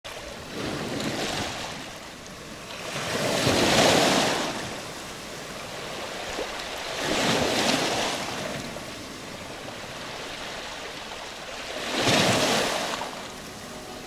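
Small sea waves breaking and washing up a pebble beach, in four separate surges, the strongest about four seconds in and near the end.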